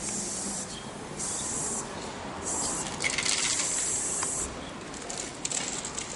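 Aerosol spray-paint cans hissing in short bursts, then one longer burst of about two seconds, with a few quick clicks in between.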